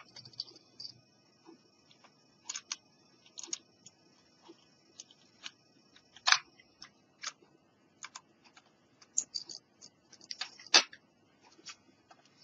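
Irregular small plastic clicks and taps as a Panasonic portable cassette player is handled and turned over in the hands, with two louder clicks about halfway through and near the end.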